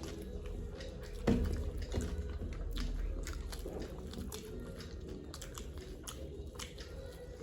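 Close-up chewing and crunching of food, with many small crisp crackles and a sharper knock about a second in.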